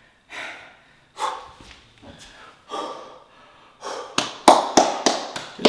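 A person breathing hard and panting in short, heavy gasps after a strenuous leg exercise. About four seconds in, a run of sharp taps starts, about three a second.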